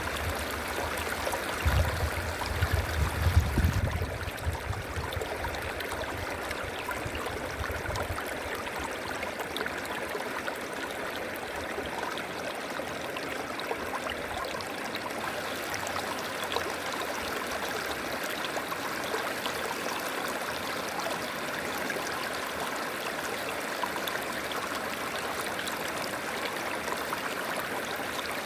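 River water flowing steadily. About two seconds in, a brief low rumbling rises over it and fades out over the next few seconds.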